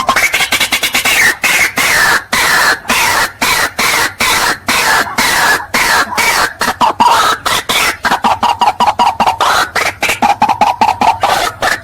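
White-breasted waterhen calling: a loud, rapid series of short harsh notes repeated about four to six times a second, the pitch settling lower and the notes coming faster in the second half.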